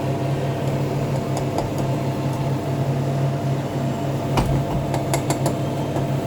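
A steady mechanical hum, like a kitchen appliance or extractor fan running. About four and a half seconds in, a few sharp clicks of a knife against the frying pan as it cuts around the omelette.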